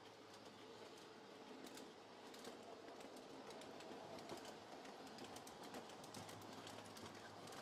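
Near silence: faint room noise with light, irregular clicking.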